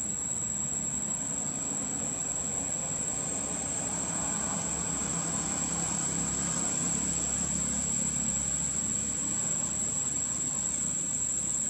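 Steady, high-pitched drone of insects, with the low hum of a motor vehicle engine that grows louder in the middle and eases off again.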